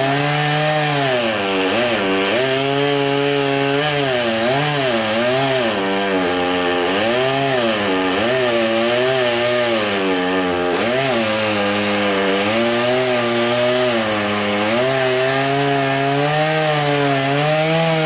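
Chainsaw cutting wood, its engine pitch dipping and recovering again and again as the chain loads up in the cut, then running steadier in the last few seconds.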